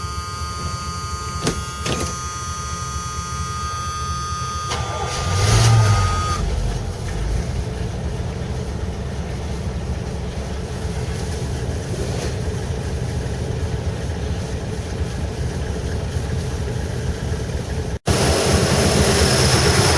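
Carbureted Chevrolet 350 small-block V8 with its original Quadrajet, cold-started after one pump of the gas pedal: it cranks briefly and catches about five seconds in, then settles into a steady idle. After a sudden break near the end it sounds louder.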